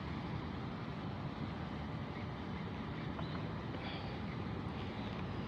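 Steady low rumble of a vehicle engine running, with a faint high whine near the end.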